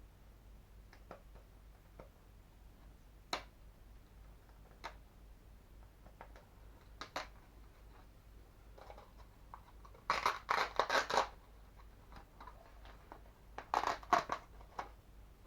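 Sparse clicks from a microwave oven's plastic parts being handled, then two short bursts of scraping and crackling, about ten seconds in and again near the end, as a glued-on touch control panel is peeled and pried away from the housing.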